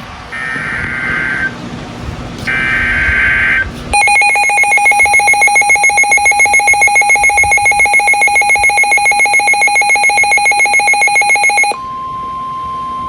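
Emergency Alert System alert tones on NOAA Weather Radio. First come two short bursts of warbling digital data, the SAME header. Then a loud, buzzing alert tone with a rapid pulse runs for about eight seconds, and about twelve seconds in it gives way to one steady single-pitch tone, the NOAA Weather Radio warning alarm tone that announces a new warning.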